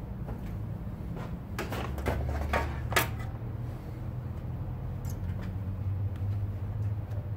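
A few knocks and clicks, the sharpest about three seconds in, as a new spin-on oil filter is fitted and screwed on by hand among the engine parts. A steady low hum runs underneath.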